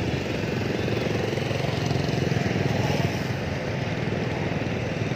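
Motorcycle engine running steadily under the rider, a fast even pulse without revving.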